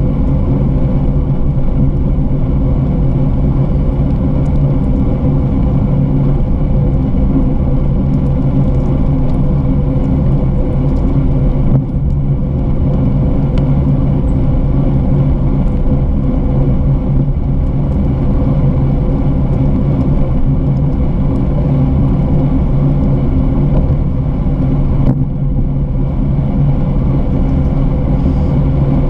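Steady rumble of a bicycle rolling along a paved trail, with wind and road noise on a bike-mounted camera and a constant low hum running under it.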